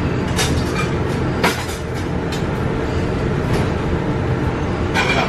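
Commercial kitchen extraction hood fan running with a steady, loud low hum, broken by a few short knocks of pans and utensils, the loudest about a second and a half in.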